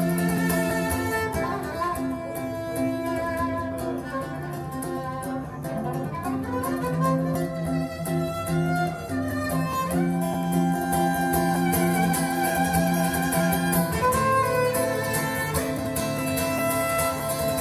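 Recorded music played back over hi-fi loudspeakers: a violin or string piece with long held notes, with guitar alongside.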